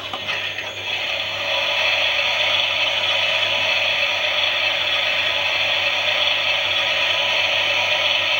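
Klein Miele toy washing machine running its drum: a small motor and plastic gears giving a steady whirring rattle, which shifts briefly about half a second in and then settles, a little louder.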